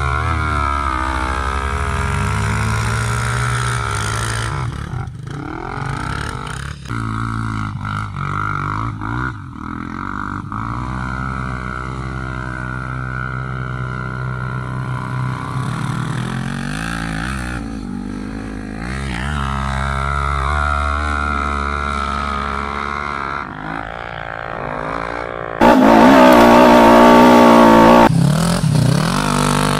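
Quad ATV engine revving hard under load as it climbs a steep sand slope, its pitch rising and falling with the throttle. Near the end a closer engine runs much louder for about two seconds.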